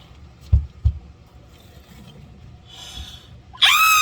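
Two dull low thumps about half a second in, then near the end a loud, high-pitched squealing voice that rises and falls in pitch.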